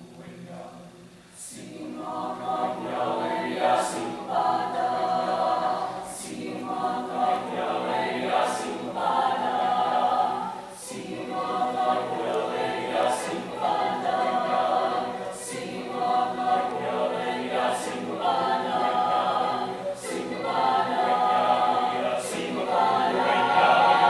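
Choir singing a cappella in sustained chords, in even phrases about two seconds long; the singing stops near the end.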